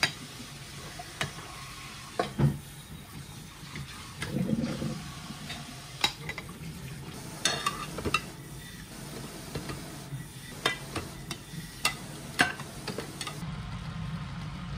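Glass and ceramic dishes clinking and knocking as they are handled in a dish drainer, in short separate clicks. Near the end a steadier low bubbling takes over: a pot of water boiling on the stove.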